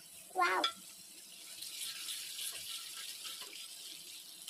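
Tomato curry simmering in an aluminium pot on a gas stove: a steady bubbling hiss. A brief pitched squeak comes about half a second in.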